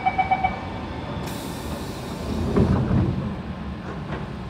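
Rapid door-closing warning beeps of an MRT train end about half a second in. A short hiss follows, then the carriage's sliding doors shut with a thud between two and three seconds in.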